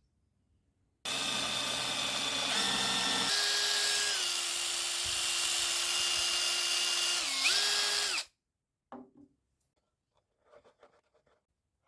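Small electric motor running with a high, steady whine that starts and stops abruptly. Its pitch steps down a little about three seconds in and dips briefly near the end. A few faint knocks follow.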